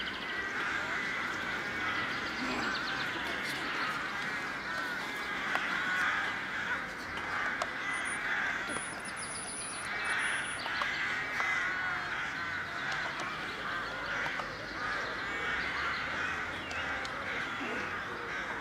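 A flock of crows calling, many short caws overlapping without a break.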